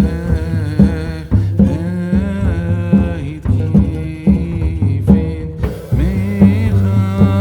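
Background music: a melismatic sung melody over a steady bass line and a regular drum beat.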